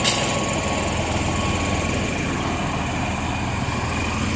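Railway locomotive or train engine idling steadily, an even hum with a short click right at the start.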